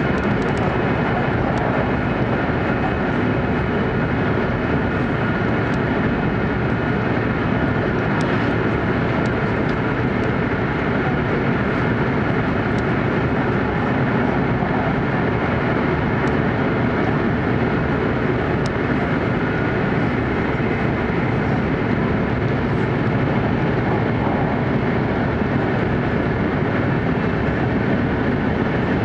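E4 series Shinkansen running at speed through a tunnel, heard from inside the passenger car: a steady, unbroken rumble and rush of wheels and air with no let-up.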